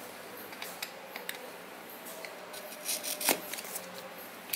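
Cutting through the red paper seal band on a cardboard box: a run of small snips, clicks and paper rustles, with one louder sharp click about three seconds in, and the cut paper being lifted off near the end.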